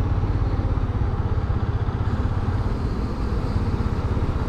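Motorcycle engine running steadily at low revs, a fast even pulse of firing, as the bike rolls slowly forward.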